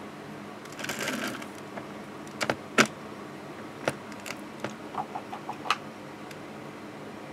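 Handling noise while painting materials are moved about: a brief rustle about a second in, then several sharp clicks and taps, the loudest nearly three seconds in, and a quick run of small light ticks near the middle-to-late part.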